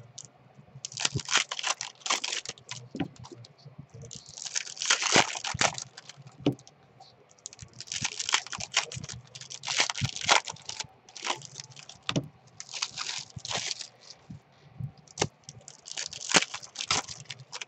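A stack of 2017 Topps Series 2 baseball cards being thumbed through and shuffled by hand: an irregular run of quick papery swishes and sharp flicks as card slides over card.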